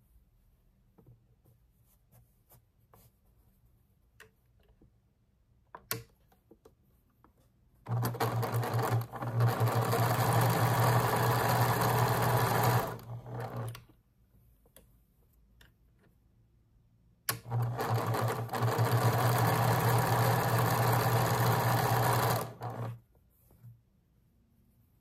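Electric sewing machine stitching a seam in two runs of about five seconds each, with a pause between them, and each run stuttering briefly as it stops. A few small clicks from handling the fabric come before the first run.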